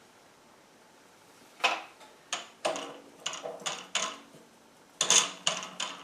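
Metal parts of a mini lathe clinking and knocking as they are handled with the spindle stopped: about ten sharp, ringing clicks in uneven clusters, starting nearly two seconds in.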